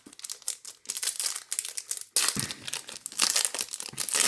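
Foil wrapper of a trading-card pack crinkling as it is handled, with a sharp, louder burst of crackling about two seconds in.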